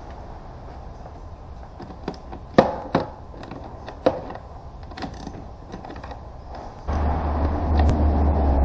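A hand tool clicking and knocking against the plastic cowl-cover fasteners at the back of a BMW E90 engine bay, a handful of sharp separate clicks over a few seconds. About seven seconds in, a steady low hum with a rushing noise comes in and grows louder.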